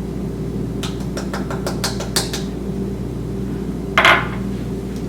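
A quick run of about ten light clicks and taps from kitchen utensils, then a short scrape about four seconds in, over a steady low hum.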